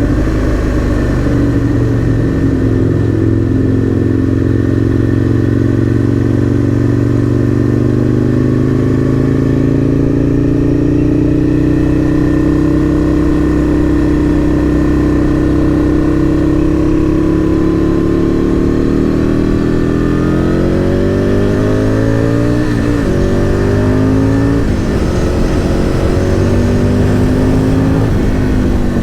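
Aprilia RSV Mille R's 998 cc V-twin running through an aftermarket Akrapovic exhaust while the bike is ridden. The revs rise and ease off slowly at first. In the last third they climb and drop sharply several times, as at gear changes.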